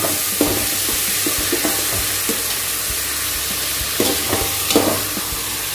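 Chopped onion sizzling in hot oil in a metal pot as it is sautéed and stirred with a spatula, which scrapes and knocks against the pot; the sharpest clinks come about four and five seconds in.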